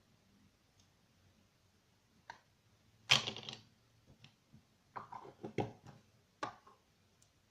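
Scattered clicks and knocks of small objects being handled. The loudest is a short rattle about three seconds in, followed by a quick cluster of clicks between five and six seconds and a last click soon after.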